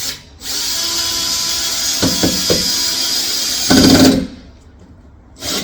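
Power drill driving a long screw into a deadbolt, its motor whining steadily for about four seconds with a few knocks midway and a loud heavier burst near the end as the screw is driven tight. There is a short blip of the drill at the start and another near the end.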